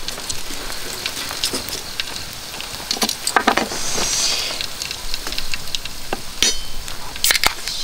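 Meat sizzling on a grill grate over a wood campfire, with frequent sharp pops and crackles and a few louder clicks.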